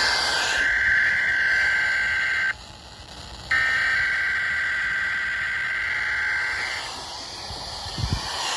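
NOAA Weather Radio warning alarm tone, a single steady high tone broadcast over the air as a weekly test signal to trigger alert receivers. It breaks off for about a second near the middle, then stops a couple of seconds before the end, leaving radio hiss.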